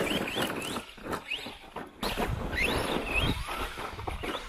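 Brushless electric motor of an RC stunt truck whining up in pitch in quick repeated throttle bursts, over the hiss of tyres scrabbling on loose dirt.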